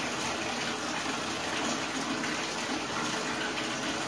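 Water running steadily into a bathtub, an even rushing with splashing during a dog's bath.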